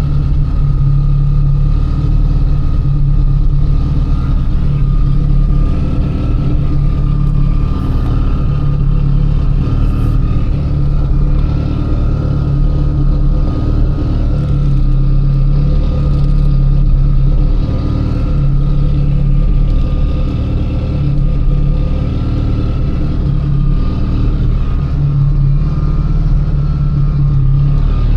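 Inside the cabin of a Mitsubishi Lancer Evolution IX while driving: the turbocharged 4G63 engine and road noise make a steady, loud rumble. There is a faint steady high tone, and no rattle from the trim, which has just been refitted with new grommets and screws.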